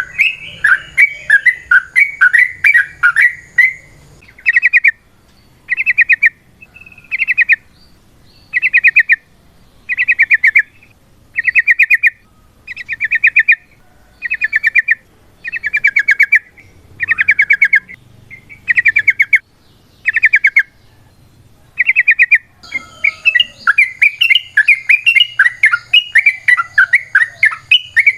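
Yellow-vented bulbul (trucukan) calling loudly: dense chattering at first, then a long run of short, rapid bubbling trills repeated about every second and a half, and dense chattering again near the end.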